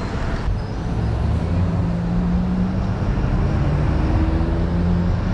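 Road traffic on a city street: the engines of passing vehicles run steadily over a haze of road noise.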